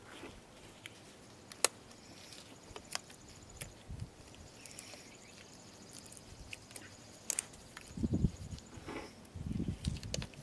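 Quiet outdoor background with a few scattered sharp clicks and faint handling noise, then low rumbling bursts near the end.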